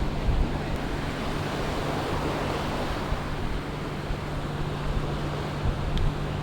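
Sea surf washing onto the beach, swelling about two seconds in, with wind rumbling on the microphone and a steady low hum underneath.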